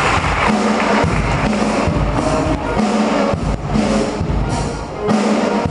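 Live band music: a drum kit played with repeated bass-drum hits and cymbals, over sustained piano notes.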